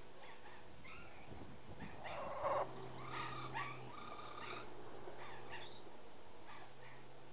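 Black-capped lory giving short, high squeaky calls and chatter in scattered bursts, with one louder, longer call about two seconds in.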